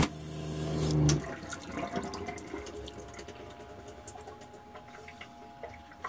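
Hot water running from a faucet into a stainless steel sink over a steady hum; both stop about a second in, leaving faint clicks and knocks.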